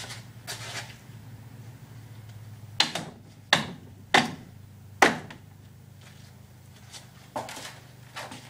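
A long-handled hand net being swung about, with four sharp knocks a little under a second apart partway through, over a steady low hum.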